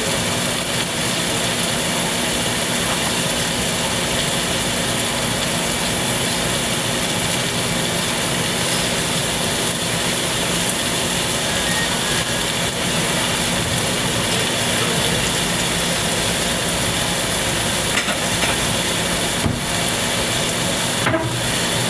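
Chicken pan-searing in oil in a nonstick pan, a steady sizzle with a low steady hum under it. A few light clicks come near the end.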